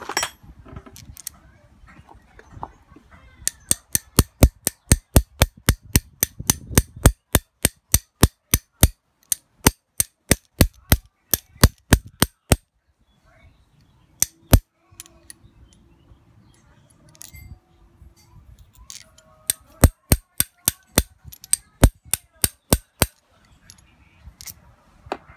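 Ratchet wrench clicking in quick, even runs of about three to four clicks a second as it turns the terminal nut holding a copper solenoid contact on a starter motor. There are two runs with a pause in between.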